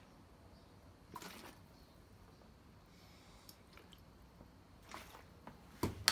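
Faint sounds of water being drunk from a plastic bottle to wash down pills: a few soft gulps and liquid swishes, with a sharp click near the end.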